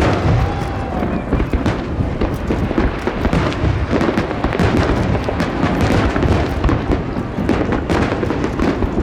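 Aerial fireworks going off in rapid, overlapping succession: dense crackling and popping over deep bangs, with no pause.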